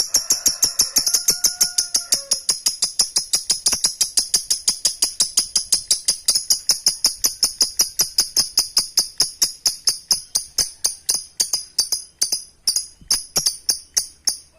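Lovebird ngekek: one long, fast chattering trill of shrill, clipped notes repeated evenly about six or seven times a second, slowing slightly with short breaks near the end. A fainter, lower whistled note sounds in the first two seconds.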